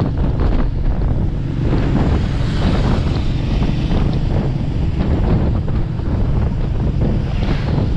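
Motorcycle engine running steadily at cruising speed, nearly buried under heavy wind buffeting on the microphone.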